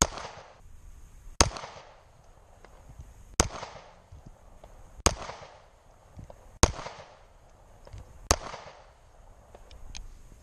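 Six single pistol shots fired slowly, one every one and a half to two seconds, each with a short echo trailing off.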